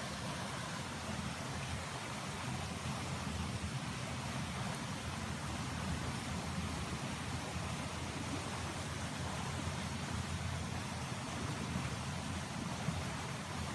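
Steady rushing noise with a low rumble underneath, unbroken and even throughout.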